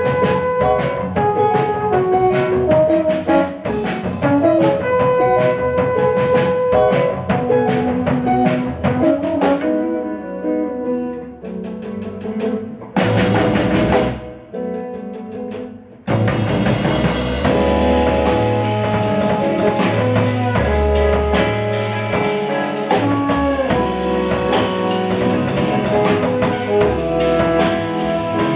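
Live jazz quartet of trombone, electric guitar, Bass VI and drum kit playing. About ten seconds in the music thins out, with a brief loud burst of noise and a quieter dip, before the full band comes back in with low bass notes about halfway through.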